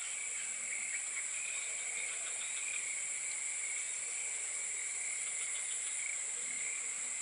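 Steady chorus of insects, a continuous high shrill drone with a second, lower trilling band beneath it.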